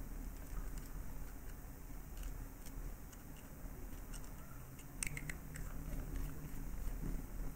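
Faint handling noise of a vape tank as its top cap is put on and screwed down: small clicks and scrapes of metal and glass parts, with a short run of quick clicks about five seconds in, over a low steady hum.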